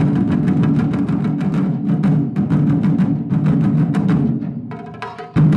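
Japanese taiko drum ensemble playing a fast, dense run of stick strokes on barrel drums that fades down after about four seconds. A short pitched sound follows, then one loud unison hit near the end that is left to ring out.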